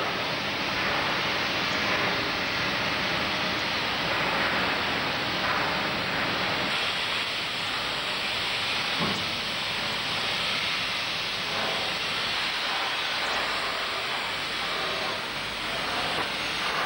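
Steady hissing noise, even throughout with no distinct events.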